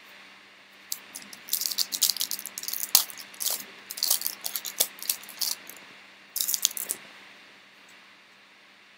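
Foil wrapper of a basketball trading card pack crinkling and tearing as it is ripped open by hand, in a run of crackling bursts with a few sharp clicks from about a second and a half in until about seven seconds in.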